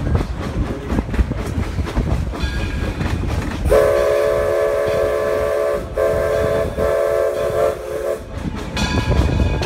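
Steam locomotive's chime whistle blown in three blasts, the first the longest, over the steady rumble and clatter of the train running on the rails.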